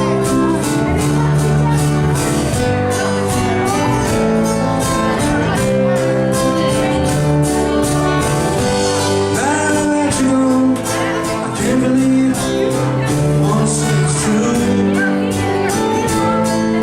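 Live band playing a song with drums, guitar and singing, with regular drum hits in a steady beat.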